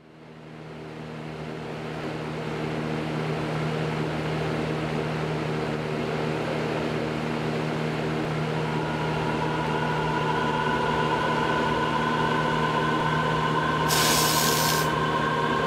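Glade aerosol air-freshener can spraying one hiss of about a second near the end, over a steady low drone that fades in, with higher steady tones joining about halfway through.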